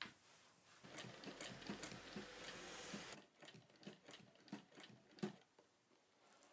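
Sewing machine stitching fabric in a short run of about two seconds, followed by scattered light clicks and taps.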